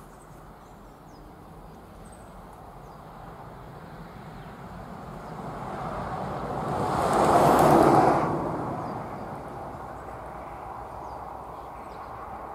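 A vehicle passes by: its noise swells gradually, peaks about seven to eight seconds in, then fades away.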